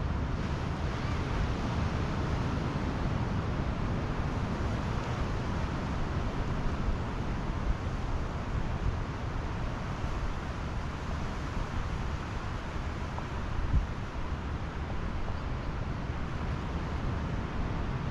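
Ocean surf washing steadily onto a beach, with wind buffeting the microphone and a couple of brief bumps.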